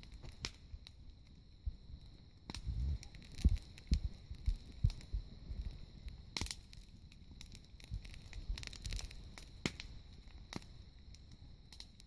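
Wood fire burning in a brick-lined fire pit, crackling with irregular sharp pops and snaps. The pops are busiest a few seconds in, along with a few low thumps.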